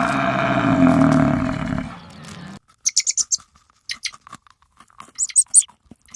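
Animal calls in turn: a loud, drawn-out, rough low call lasting about two seconds, then after a short gap, quick clusters of tiny high-pitched squeaks.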